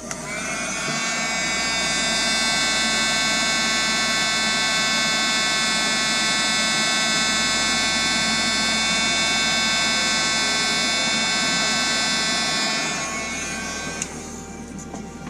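Handheld heat gun running, shrinking heat-shrink tubing over freshly soldered wire joints. Its fan spins up into a steady whine over the first couple of seconds and winds down near the end.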